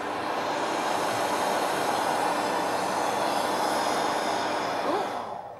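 Photo booth mechanism running with a loud, steady whirring rattle that drops away about five seconds in, with a brief rising squeak just before it stops.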